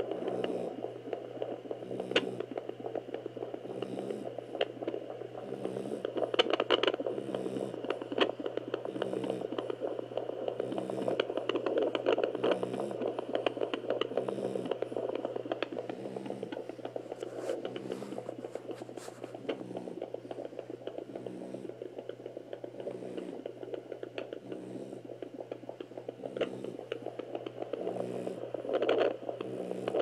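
Pocket fetal Doppler's loudspeaker giving a whooshing hiss from the probe on a pregnant French Bulldog's belly, with a regular pulse about every three-quarters of a second: the heartbeat the Doppler is picking up. Scraping and crackling as the probe rubs over the fur.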